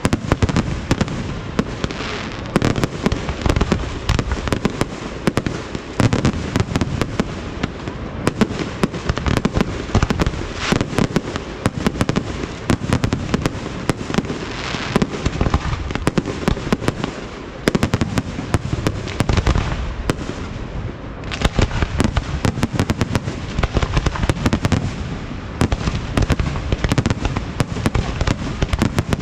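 Fireworks display going off continuously: a dense, rapid run of bangs and crackling bursts with no let-up.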